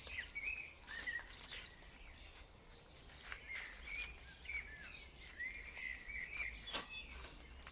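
Small songbirds chirping in repeated short, bending calls, with a few light clicks or taps, the sharpest near the end.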